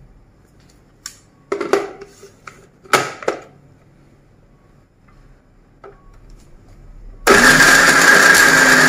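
A couple of plastic knocks as a blender jar is handled and seated on its base, then about seven seconds in a Panasonic blender motor starts and runs steadily with a constant whine, grinding raw chicken pieces with green chilli and ginger-garlic paste.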